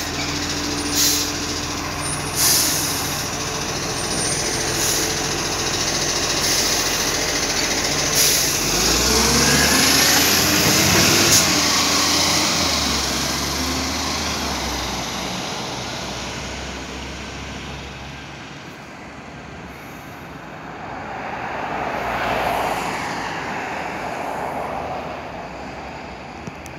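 Iveco ACCO garbage truck with a Superior Pak side-loader body driving off: its diesel engine runs steadily, with short sharp air-brake hisses in the first few seconds. The engine is loudest about ten seconds in as the truck pulls away, then fades as it moves off, with a second swell of passing traffic about twenty-two seconds in.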